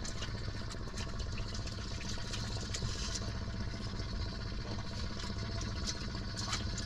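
Small engine idling steadily aboard a boat, with scattered clicks and knocks over it.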